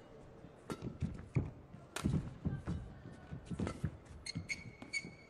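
Badminton rally: sharp cracks of rackets striking the shuttlecock mixed with the thuds of players' footwork and lunges on the court, starting about a second in. A few short shoe squeaks come near the end.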